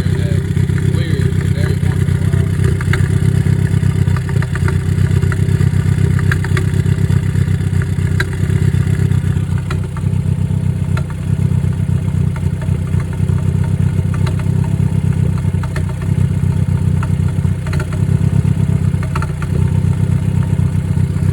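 Ford Focus four-cylinder engine idling with a steady, rapidly pulsing low note; the Cobb tuner is logging a misfire on cylinder 3, following a recent change of spark plugs and fuel injectors.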